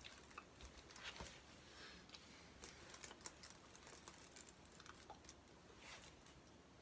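Near silence, with faint, irregular soft clicks and rustles from hands and a leather jacket moving while signing.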